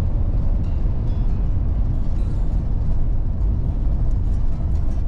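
Mercedes-Benz Sprinter 415 motorhome's diesel engine and tyres rumbling steadily, heard from inside the cab while driving, with a few faint ticks and rattles.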